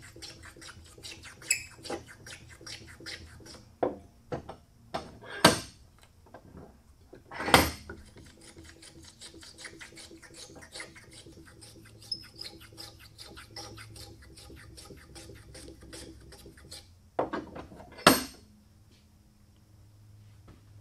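Small metal hand plane worked in rapid short strokes over a small piece of wood, a brief scrape of shaving on each pass, about three or four a second. A few much louder knocks cut in, the last near the end as the plane is set down on the bench.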